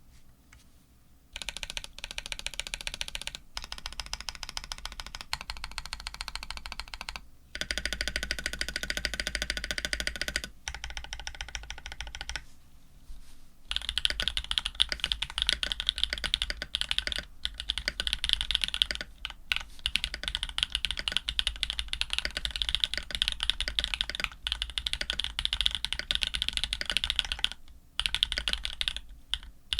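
Custom Orion 2.5 mechanical keyboard being typed on: Jade Black switches with TX films, lubed with Krytox 105, on a black FR4 plate with GMK keycaps. Rapid keystrokes come in runs of several seconds, broken by short pauses, starting about a second in.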